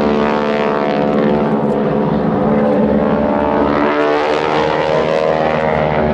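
Radial engines and propellers of two Boeing Stearman biplanes droning steadily in formation flight, the engine note wavering slightly in pitch.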